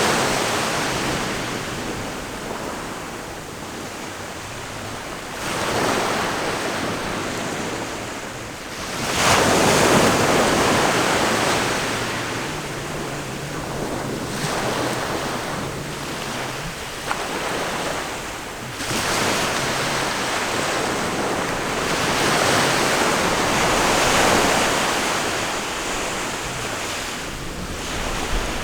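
Ocean waves breaking and washing up the shore, the surf swelling and falling back every four or five seconds, with wind buffeting the microphone.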